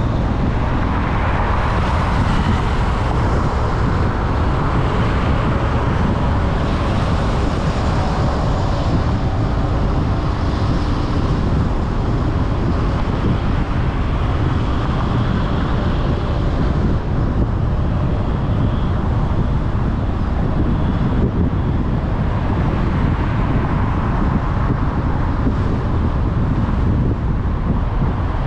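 A car driving in traffic: steady road noise, a low rumble of engine and tyres, with the hiss swelling and fading a little.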